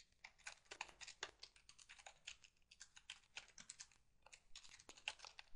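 Faint typing on a computer keyboard: a run of quick, uneven keystrokes with a couple of short pauses.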